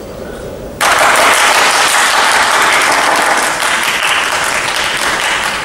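Audience applauding, the clapping breaking out suddenly about a second in and staying strong, easing slightly near the end.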